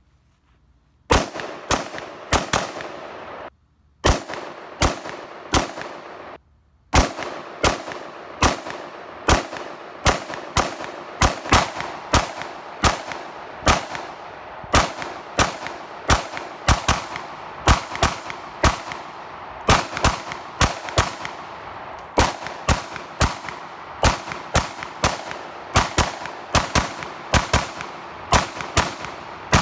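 AR-15 rifle firing a long, rapid string of shots, about two a second, each followed by a short echo. The shots begin about a second in, with two brief pauses in the first seven seconds, then continue steadily.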